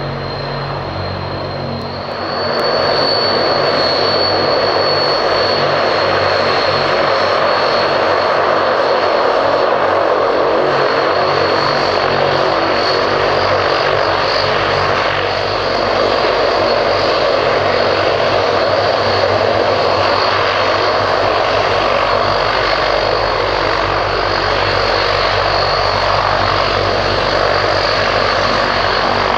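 Transall C-160D's two Rolls-Royce Tyne turboprops going to takeoff power, the sound rising sharply about two and a half seconds in and then holding loud and steady as the aircraft rolls past on its takeoff run, with a high turbine whine over the propeller noise.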